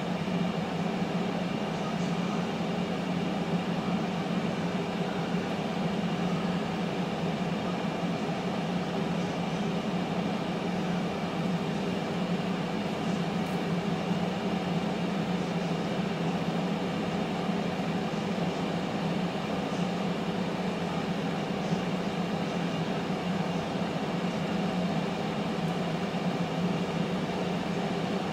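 Power XL air fryer running mid-cook: a steady hum of its fan circulating hot air, unchanging throughout.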